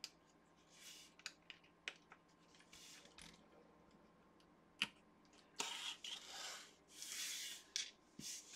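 Faint, scattered little clicks of plastic LEGO minifigure pieces being pressed together and handled, with a few soft rustles of hands moving over the mat.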